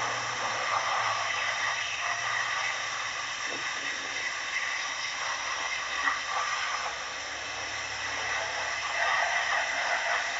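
Pressurised cleaning spray gun hissing steadily as it washes down a hydraulic pump, set to about 5 kg of pressure, with a faint low hum beneath.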